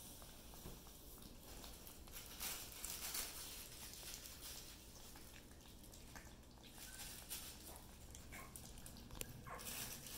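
Yorkie-poo puppies eating raw food from a ceramic dish: faint wet chewing and licking, with louder stretches about two and a half seconds in and again near the end.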